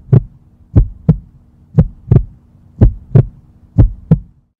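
Heartbeat sound effect: deep paired lub-dub thumps about once a second over a steady low hum, all cutting off suddenly just before the end.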